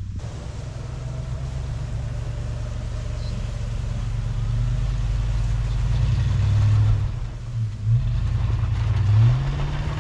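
Toyota Tundra pickup engine running under load as it drags a log through snow on a tow strap: a steady low engine note that builds gradually, drops briefly near the end and then rises again as the revs pick back up.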